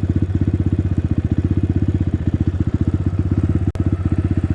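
Crossfire CX250R dirt bike engine idling: a steady, fast pulsing of about twelve beats a second, with one instant's drop-out just under four seconds in.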